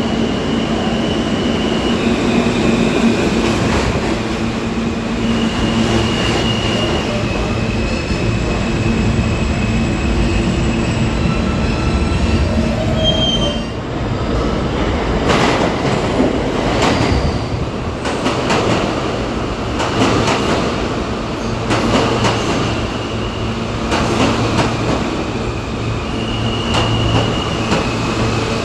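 Subway trains running into underground stations: a steady rumble with high wheel squeal on and off. A run of sharp clicks in the second half as the cars roll along the platform.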